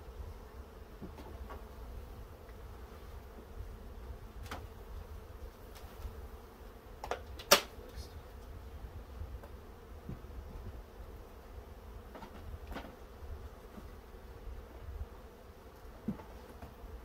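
A honeybee swarm buzzing steadily around an opened hive box, with a few short wooden knocks from hive frames being handled; the loudest knock comes about halfway through.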